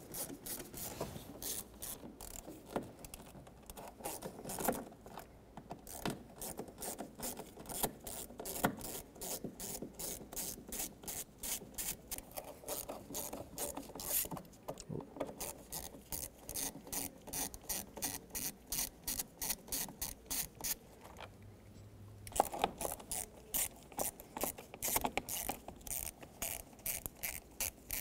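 Ratcheting Phillips screwdriver backing out the door-sill panel screws. The ratchet clicks steadily, about four to five clicks a second, with a short break about three quarters of the way through.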